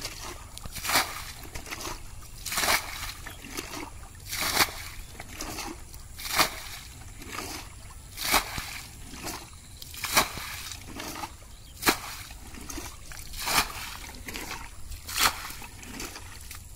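Plastic bucket scooping muddy water from a shallow field channel and flinging it out, a slosh and splash about every two seconds, nine times, as the channel is bailed down.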